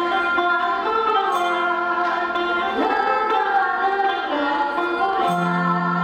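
Live folk-pop music: a sape, the Sarawak boat-shaped lute, plucked with an acoustic guitar while a woman sings in gliding phrases. A low held note comes in near the end.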